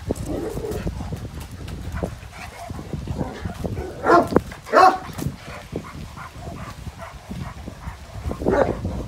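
Dog barking: two loud barks about four seconds in, a short pause between them, and another bark near the end.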